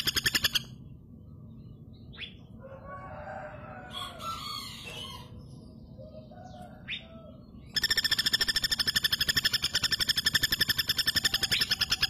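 Female common flameback woodpecker giving its loud, fast, even rattling trill. It breaks off after about half a second, and the quieter gap holds a couple of short rising chirps and fainter calls. The rattle starts again suddenly about eight seconds in and runs on.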